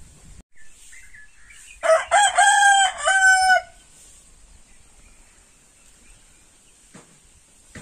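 A rooster crowing once, about two seconds in, in a loud multi-part call close to two seconds long.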